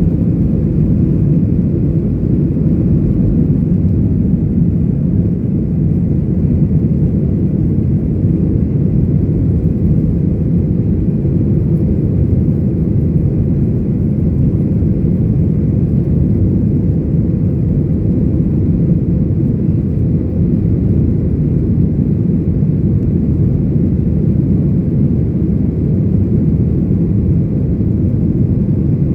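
Steady, loud low rumble of a Boeing 737's jet engines and airflow heard inside the passenger cabin, without change in level or pitch.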